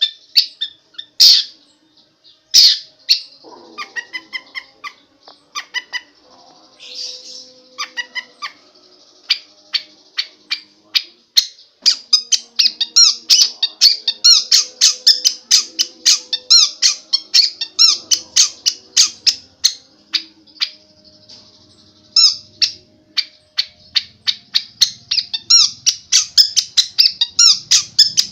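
Long-tailed shrike (cendet) singing a fast, varied run of short, high notes, several a second, with two loud harsh calls near the start and a brief pause about three-quarters through. The song is the kind the uploader likens to a 'telolet' bus horn.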